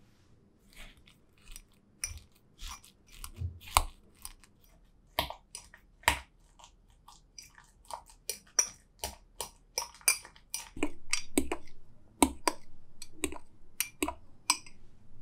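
Banana slices and brown sugar mashed with metal cutlery in a glass tumbler: irregular sharp clinks of metal on glass mixed with soft wet squishing, denser for a stretch in the second half.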